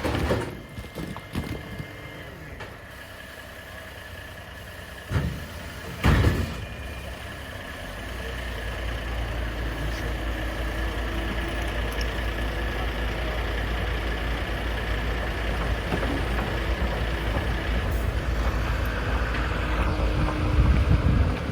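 Two sharp knocks about five and six seconds in, then a heavy vehicle's engine running steadily with a low rumble.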